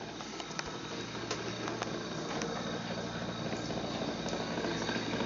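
Snoring: a long, rough breath that swells gradually, growing louder toward the end.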